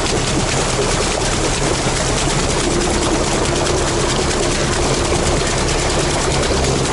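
Sherp all-terrain vehicle's engine running steadily under way, a constant loud drone with an even low hum.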